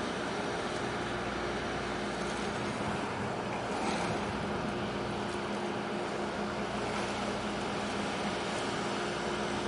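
Steady harbour ambience: a wide, even hiss of wind and water with a faint steady low hum underneath.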